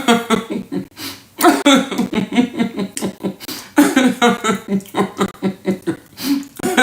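A person talking in short bursts with brief pauses.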